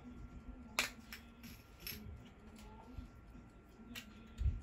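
Sharp little clicks and scrapes of a tool working on the case back of a Technos automatic wristwatch to open it. The loudest click comes about a second in, and there is a dull thump near the end.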